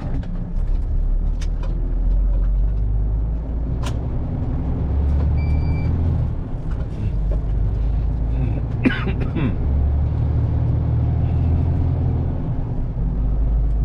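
HGV diesel engine running steadily while driving, heard from inside the cab, with a few sharp clicks and a short beep about five and a half seconds in.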